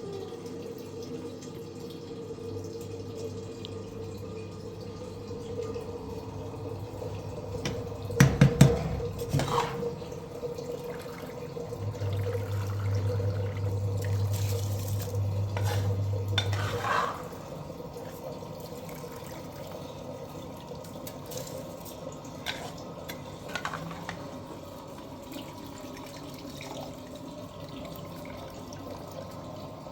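Running water and dishes clinking, as when washing up at a sink, with a cluster of clattering knocks about eight seconds in and a low hum that comes and goes.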